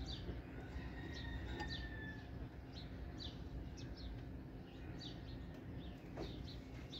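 Faint, scattered short chirps of small birds, over a faint steady low hum.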